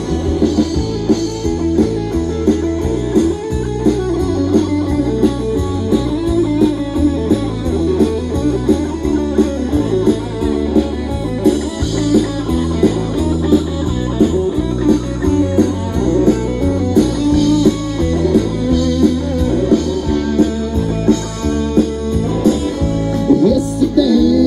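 Live rock band playing an instrumental passage with no vocals: electric guitars over bass and a steady drum beat.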